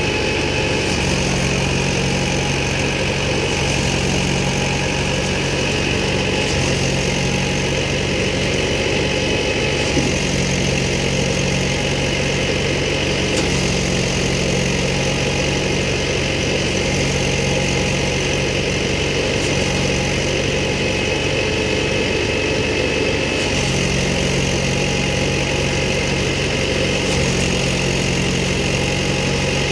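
Tractor-powered thresher running steadily while its blower throws straw through the chute onto a trolley: a constant engine drone with a steady higher whine.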